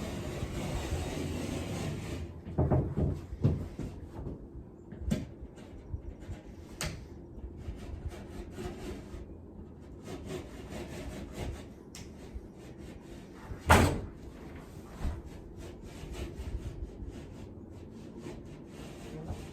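Utility knife scraping along a line as it scores through the face paper of a drywall sheet, with scattered knocks and one sharp knock about fourteen seconds in.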